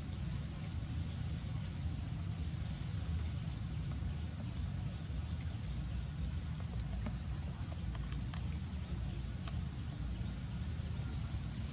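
Outdoor ambience: a steady, high-pitched drone that pulses at regular intervals, like insects, over a low rumble, with a few faint clicks.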